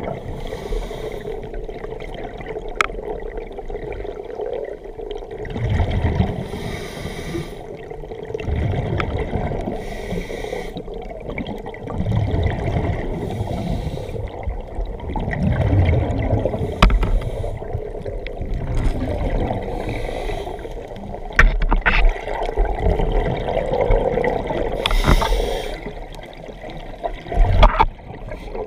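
Scuba diver breathing through a regulator underwater: exhaled bubbles rumbling and gurgling out in bursts every few seconds, with hissing between them. A few sharp knocks come through, the loudest near the end.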